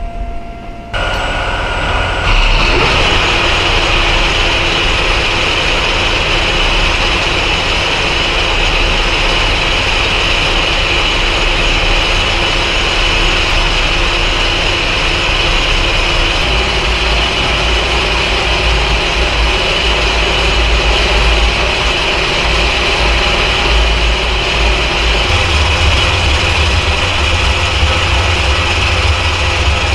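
Metal lathe running steadily under power while an aluminium part is turned, with a steady whine over the motor's hum. The low hum changes pitch twice, about halfway through and near the end.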